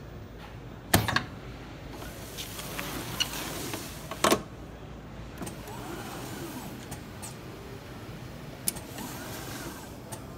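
Programmable pattern sewing machine (Mitsubishi PLK-J6040) cycling: two sharp mechanical clunks about a second in and again about four seconds in as the upper clamp plate closes. Between and after them comes an electric motor whine that rises and falls as the work clamp moves the template under the sewing head.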